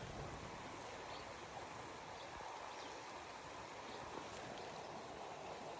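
Faint, steady rush of flowing creek water, with a few light ticks.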